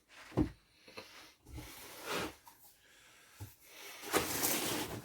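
Handling noises of things being moved about: a sharp knock about half a second in, then softer knocks and rustling, with a louder stretch of scraping or rustling near the end.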